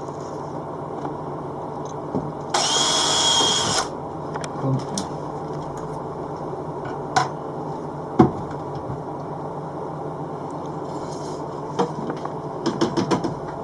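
Power drill running briefly, for about a second, about three seconds in, boring a small screw hole in a light-fitting rail, with a steady high whine while it runs. Light clicks and knocks of handling the rail and drill follow, with a quick cluster of taps near the end.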